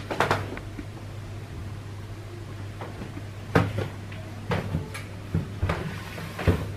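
Irregular knocks and thumps: one just after the start, then a run of them from about three and a half seconds in, over a steady low hum.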